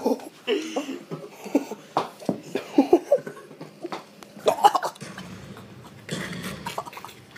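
Boys laughing in short breathy outbursts and cough-like gasps, followed by a couple of seconds of rustling.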